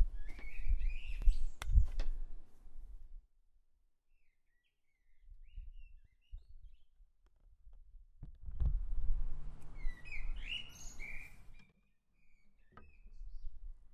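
Birds chirping and singing in short phrases, in two bouts a few seconds apart with faint chirps and near silence between, over a low rumble.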